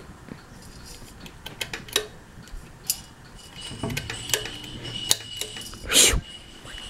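Harbor Breeze Annalise ceiling fan running on medium speed, with scattered light clicks and ticks, a faint steady high whine from about three seconds in, and a short whoosh near the end.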